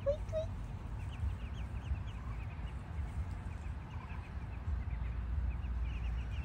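A brood of ducklings peeping, many short high chirps overlapping throughout, with two lower calls just at the start. A steady low rumble runs underneath.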